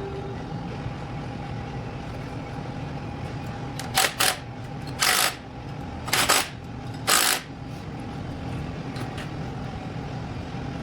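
Compressed-air tool fired in five short bursts over about three seconds, during the teardown of a 454 big-block engine, over a steady shop hum.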